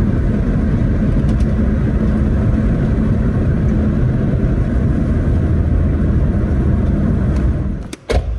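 Steady low road and engine rumble inside a minivan's cabin while driving. Near the end the rumble cuts off and a single sharp knock comes from a car door.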